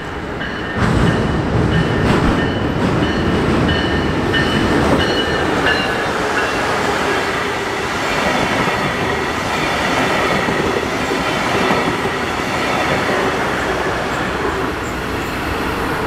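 Brightline passenger train passing close by, a loud steady rush of wheels on rail and locomotive engine that starts about a second in. A grade-crossing warning bell dings about twice a second over it and fades out about six seconds in.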